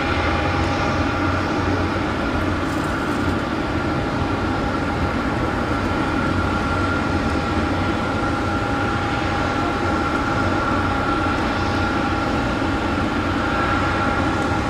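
Boeing 737-800's jet engines running steadily: an even rumble with a constant high whine.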